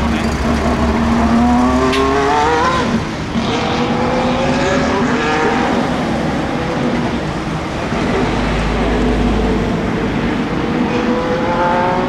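Ferrari F1-75 Formula 1 car's turbocharged V6 hybrid engine accelerating on track. Its pitch rises in several long sweeps, each followed by a drop back as it shifts up.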